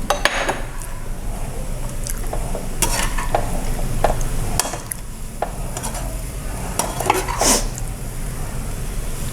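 A spatula stirring and scraping through a lentil crumble in a frying pan as steamed wheat-flour balls are mixed in, with light sizzling and scattered clicks of the spatula against the pan.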